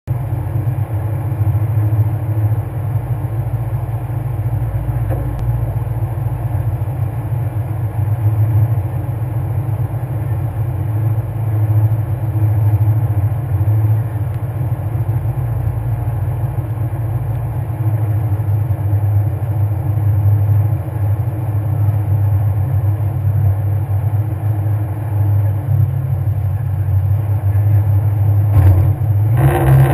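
Škoda 130 LR rally car's rear-mounted four-cylinder engine idling steadily, a loud low hum, with a brief rise near the end.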